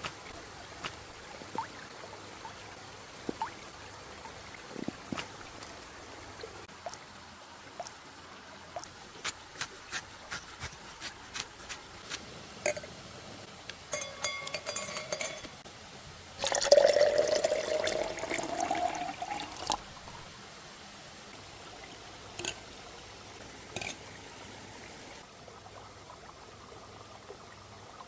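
Light clicks of utensils and a brief ringing clink, then liquid poured into a container for about three seconds, its pitch rising as the container fills.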